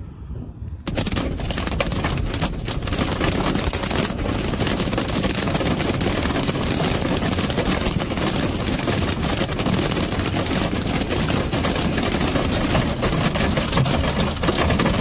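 Heavy rain pelting a car's roof and windshield in a dense, rapid patter as the car drives through a storm, beginning abruptly about a second in after faint wind noise.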